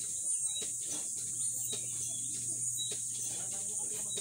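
Steady high-pitched insect drone with scattered bird chirps, and a few light clicks.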